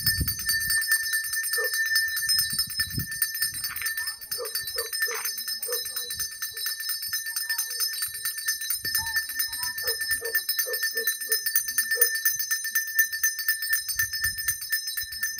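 Small hand bells rung rapidly and without pause, a bright continuous jingling ring, with faint voices beneath.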